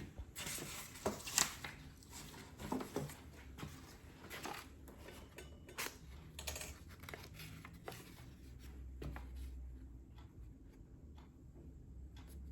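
Hands handling packaging during an unboxing: irregular light clicks, taps and rustling, loudest about a second in.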